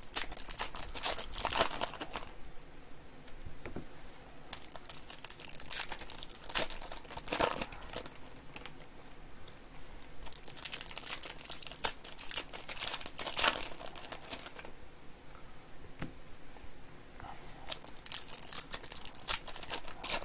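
Foil wrappers of Panini Certified basketball card packs crinkling and tearing as they are opened by hand. The sound comes in several bursts a few seconds apart, with quieter handling between them.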